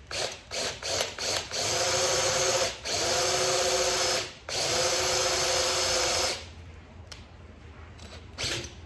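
Electric drill boring a hole through a motorcycle's luggage case. It starts with several short trigger pulls, then runs steadily in three stretches of a second or two each and stops about six seconds in, once the bit has gone through.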